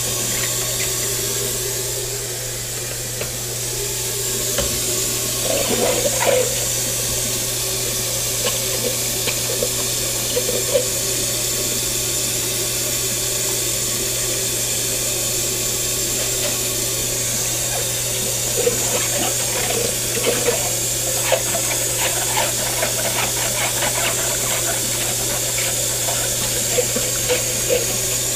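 Kitchen tap running steadily into a stainless steel sink while dishes are washed by hand, with scattered light knocks and rubbing as a plastic cup is handled and scrubbed under the stream, more of them in the second half.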